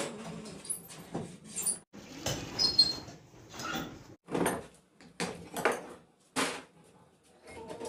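Metal sewing-machine parts and tools being handled and fitted to a sewing machine head: an irregular series of short clicks, knocks and scrapes, one with a brief metallic ring about two and a half seconds in.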